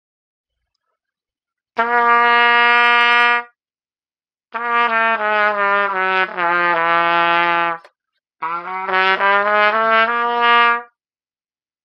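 Plastic pTrumpet played with a 5C mouthpiece: a single held note about two seconds in, then a phrase that steps down in pitch, then a shorter run of changing notes near the end, with short pauses between the phrases.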